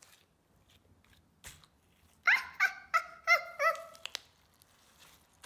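A small dog barking five quick, high yaps about two seconds in, each yap falling in pitch.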